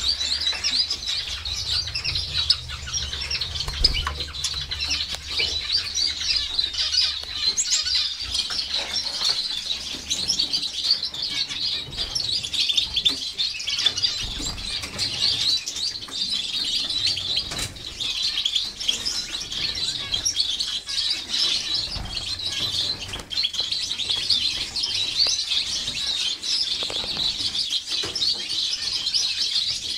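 A mixed flock of caged finches, Gouldian finches among them, chirping continuously: a dense chorus of many short, high chirps overlapping without a break.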